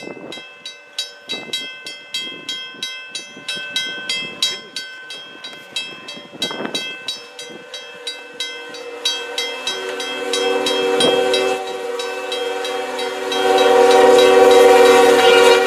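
Railway level-crossing bell ringing in even strikes, about three a second. From about nine seconds in, a diesel locomotive's horn sounds a steady chord, loudest near the end.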